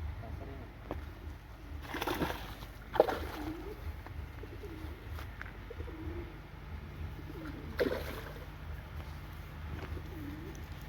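A dove cooing repeatedly in soft low phrases, over a steady low rumble. Three short sharp sounds break in about 2, 3 and 8 seconds in, the one at 3 seconds the loudest.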